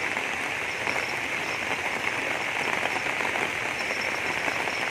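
Steady rushing water noise from rain and a fast-flowing, swollen river in flood.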